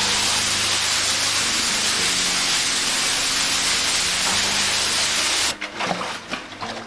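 Heavy spray of a cave waterfall pouring onto cavers below, a loud steady hiss. A little over five seconds in it cuts off abruptly to quieter splashing and dripping water.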